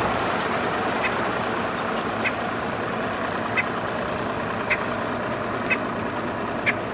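Mercury 200 outboard motor on a bass boat running at idle in gear, pushing the boat slowly through the water. Short high chirps recur about once a second over the steady engine sound.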